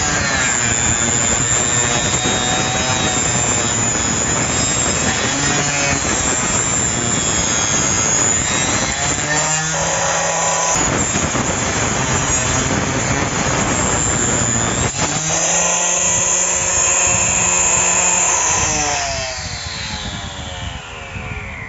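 Homemade circular saw, a high-RPM 775 motor driving a 110 mm blade, cutting through plywood with a loud whine that wavers as it bites. Near the end the motor is switched off and the whine falls steadily in pitch as the blade spins down.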